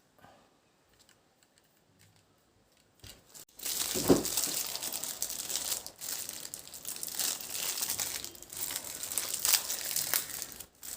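Crinkling and rustling of something being handled close to the microphone. It starts about three and a half seconds in, with a louder crackle soon after, and stops just before the end.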